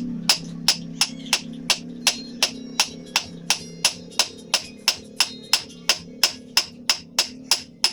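Hammer striking iron on an anvil in a steady rhythm, about three ringing blows a second.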